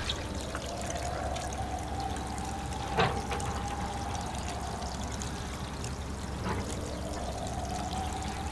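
Water pouring steadily from a plastic watering can onto potted plants, with a faint tone running through the splashing. There is a single sharp knock about three seconds in.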